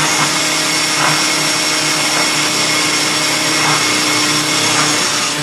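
Oster countertop blender running steadily, mixing a liquid chocolate ice-cream base while thickener powder is added through the lid opening.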